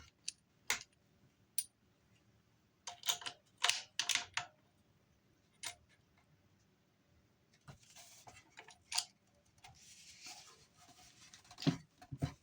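Scattered sharp metallic clicks and clinks, some in quick clusters, as a reflex sight's mount is fitted onto a shotgun's rail. A couple of short soft scrapes come in the second half.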